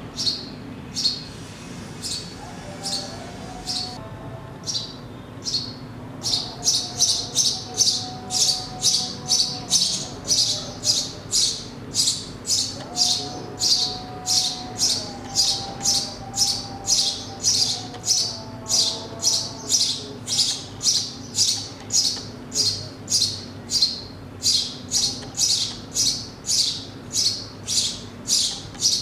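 Sparrow chirping over and over in short, high, evenly paced chirps, about one a second at first, then louder and faster, about two a second, from about six seconds in.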